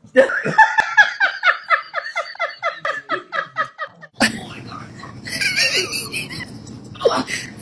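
High-pitched rapid laughter in even pulses, about five a second, for roughly four seconds. It cuts off abruptly into a steady hiss with a higher voice over it.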